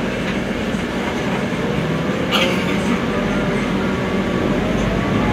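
Steady cabin noise of a Scania articulated bus running, a low drone with a short hiss about two seconds in.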